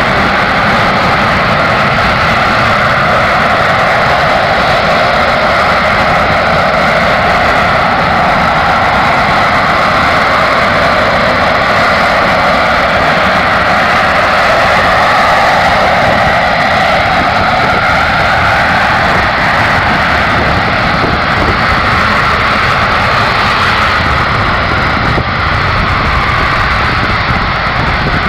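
Harrier T12 jump jet's Rolls-Royce Pegasus engine holding the aircraft in a hover during a vertical landing. It makes a loud, steady jet rush with a wavering whine in it.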